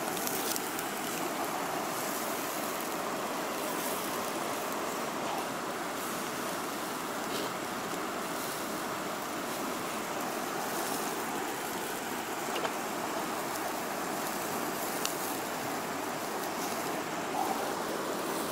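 Steady rushing of flowing river water, with a few faint crackles from the wood fire in a metal firebox stove.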